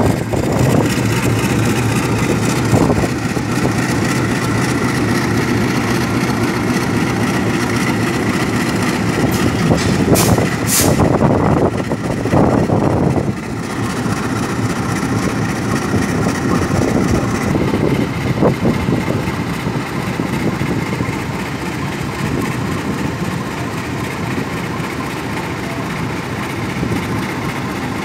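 Diesel-electric locomotive engine running steadily at low power with a deep, even hum as the locomotive creeps slowly along the track. A few brief, sharper noises come through about ten to thirteen seconds in.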